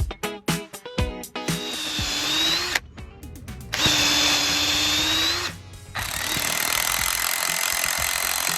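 Stihl chainsaw with a carbide-tooth chain running flat out in three spells, cutting into a thick tree root: a steady high whine. It drops off briefly twice. Funk music with plucked guitar plays for the first second or so.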